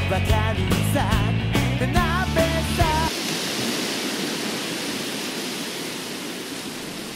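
Rock music with drums, a steady bass and a wavering lead line cuts off suddenly about three seconds in, leaving a steady rushing hiss of surf that slowly fades.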